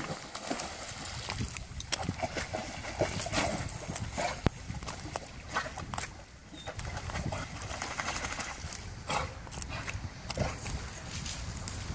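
A dog leaping into a river with a splash at the very start, then swimming. Irregular sharp clicks and crackles run over a low rumble.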